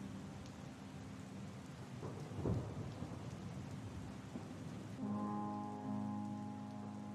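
Steady rain with a single rumble of thunder about two and a half seconds in, the loudest moment. A held music chord lies underneath and swells back in about five seconds in.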